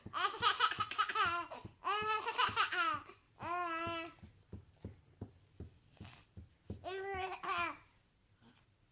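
A baby laughing and babbling in four spells, one a held high squeal. Between them, about halfway through, comes a run of faint short ticks.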